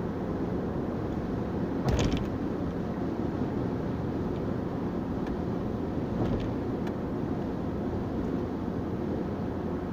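Steady road and engine noise inside a moving car's cabin at highway speed. There is a short, sharp knock about two seconds in and a couple of fainter clicks later.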